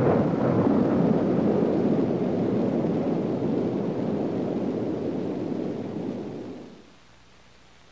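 Loud, steady low rushing rumble like strong wind, fading out about six and a half seconds in and leaving faint hiss.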